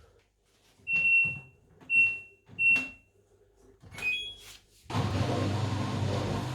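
LG washing machine control panel beeping three times as buttons are pressed, then a short two-note tone; about five seconds in the machine starts running with a steady hum and whir.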